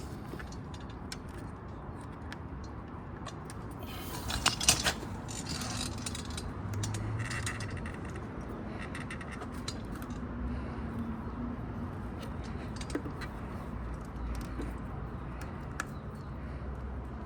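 Scattered small clicks and scrapes of hand work on a motorcycle's rubber carburetor intake boot, with a brief louder clatter about four and a half seconds in.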